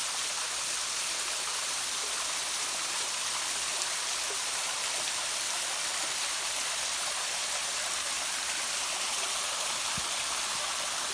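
Small waterfall running with little water: a steady rush of falling and splashing water.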